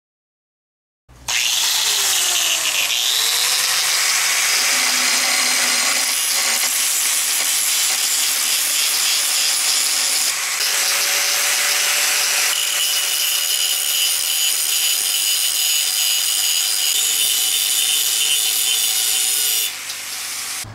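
Angle grinder with an abrasive disc grinding down the weld across the mended crack of a steel meat cleaver blade. It starts about a second in, grinds steadily with a high whine, and drops off near the end.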